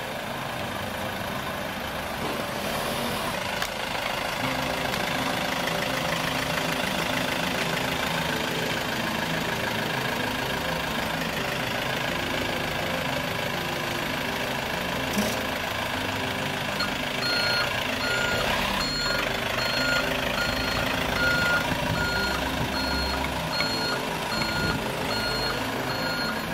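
Small flatbed truck's engine running steadily as it creeps slowly over the slabs, laden with about two tons of pallets. In the second half its reversing alarm starts beeping at an even pace.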